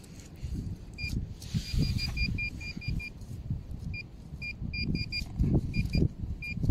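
Handheld metal-detecting pinpointer beeping in short high chirps as its tip is worked through wood-chip mulch. The beeps come quickly together about two seconds in, then singly and in small clusters, a sign of the probe passing close to buried metal. Low rumbling runs underneath.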